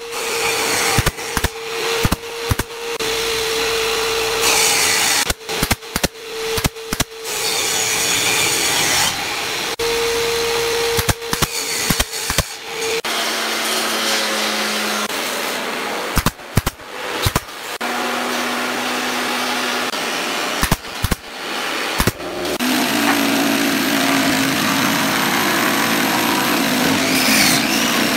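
A nail gun firing brads into pine pallet boards: a run of sharp shots, several a second at times, over a steady hum, thinning out about halfway through. About three-quarters of the way in, an electric jigsaw starts and runs steadily, cutting through the board ends.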